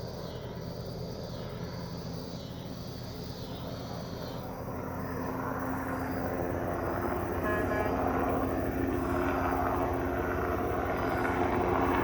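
Medical helicopter in flight: steady rotor and turbine noise that grows louder about halfway through as it turns to head off.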